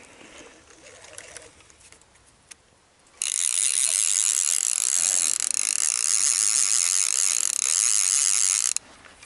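Fishing reel's drag ratcheting loudly for about five and a half seconds as a hooked lake sturgeon pulls line off the reel. It starts about three seconds in and cuts off suddenly near the end.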